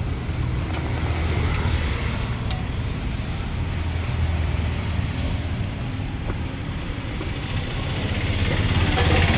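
Roadside street ambience: a steady low rumble of passing road traffic, with a few faint clicks.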